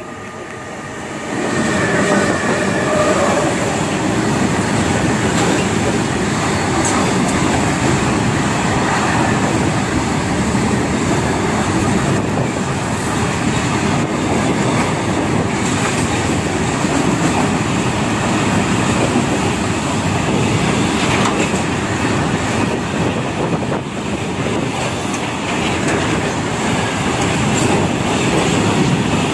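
A heavy freight train of BOXNHL open wagons, hauled by a WAG-12 electric locomotive, running past close by at speed. It gets sharply louder about a second and a half in, then holds a steady, loud rumble of steel wheels on rail, with a continual clickety-clack of wheels over rail joints.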